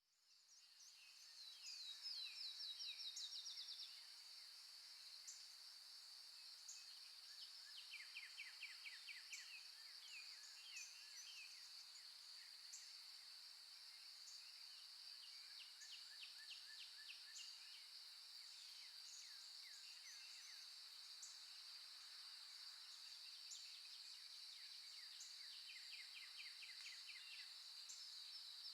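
Wild birdsong: several birds giving quick trills of rapid repeated notes, with scattered sharp high chips, over a steady high-pitched drone. It fades in over the first two seconds.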